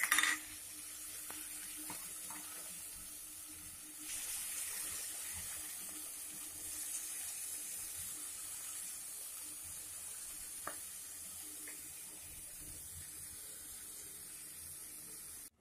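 A splash of water hitting a hot wok of stir-fried oncom and vegetables, a loud burst of hiss at the start that settles into a steady sizzle. The sizzle grows louder about four seconds in as the food is stirred, with a light knock or two of the stirring.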